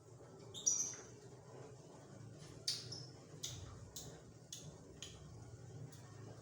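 A metal spoon or ladle clinking against a cooking pot of simmering soup: about half a dozen light, separate clinks, some with a brief high ring, about a second in and again near the end.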